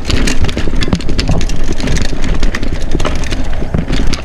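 Mountain bike riding down a rocky trail: tyres, chain and frame rattling over rocks in a rapid, irregular string of clacks and knocks over a steady low rumble.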